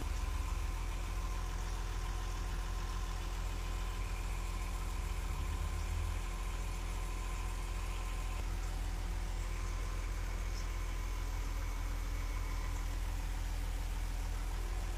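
Freshly overhauled diesel engine of a Komatsu WA500 wheel loader idling steadily after being reinstalled.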